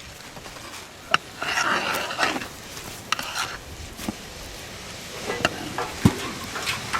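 Food being stirred in a cooking pot: a stretch of scraping about a second and a half in, with a few sharp knocks of the utensil against the pot.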